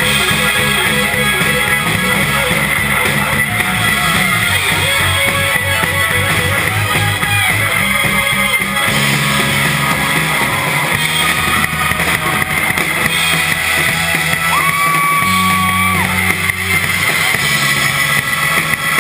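Live rock band playing loudly: guitars, bass and drum kit, with the bass line changing notes and one long held note about fifteen seconds in.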